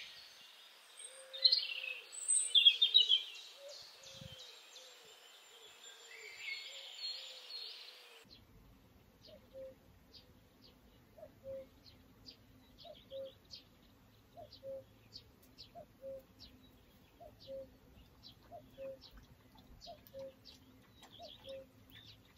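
Songbirds chirping for the first several seconds, then a sudden change to a dog lapping water from a bowl: soft, wet laps in a steady rhythm, about one and a half a second.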